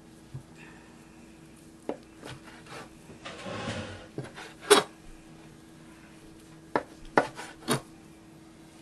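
Chef's knife slicing through a prosciutto-wrapped mozzarella roll, the blade sawing and knocking down onto a plastic cutting board several times. There is a short rasping stretch of sawing about three and a half seconds in, and the sharpest knock comes a little under five seconds in.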